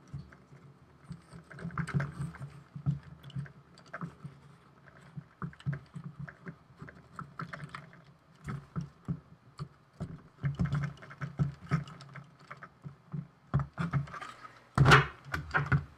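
Irregular small clicks and taps of hands handling a small wooden robot chassis while stretching rubber bands onto its wooden wheels, with a few louder knocks near the end.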